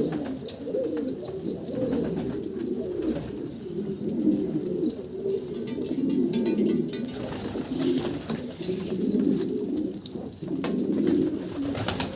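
Pigeons cooing, several at once, their low calls overlapping without a break.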